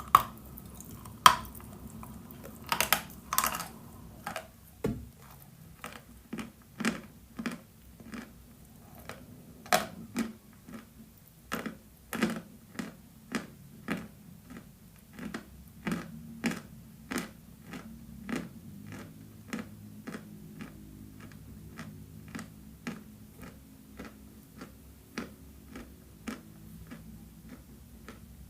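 Chalk being crunched and chewed close to the microphone: a steady run of sharp, dry crunches about twice a second, with the loudest bites bunched in the first few seconds.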